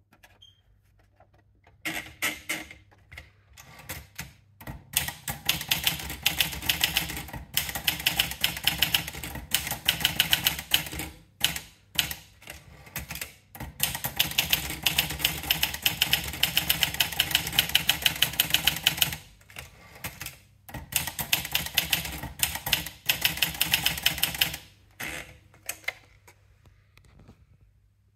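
Olivetti Lettera 35 manual portable typewriter being typed on: runs of rapid key strikes with short pauses between them. The typing starts about two seconds in and stops a little before the end.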